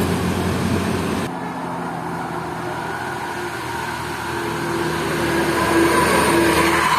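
A bus engine running and passing, growing louder over the second half with a steady whine.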